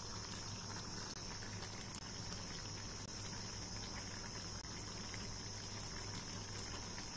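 Shukto, a mixed-vegetable curry in a milky gravy, simmering in a kadai over a turned-down gas flame: faint, steady bubbling and hiss.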